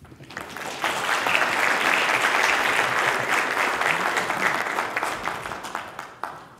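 Audience applauding: the clapping swells over the first second, holds steady, then dies away near the end.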